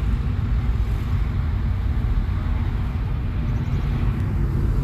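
Steady low rumble of a moving car, heard from inside the cabin: road and engine noise.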